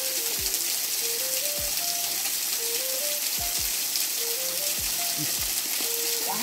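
Steady hissing rush of flowing water, with background music over it: a simple tune of short stepping notes and soft falling bass thumps.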